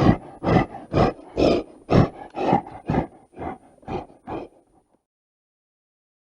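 Gorilla screaming in a run of short, loud calls about two a second, growing weaker and stopping about five seconds in.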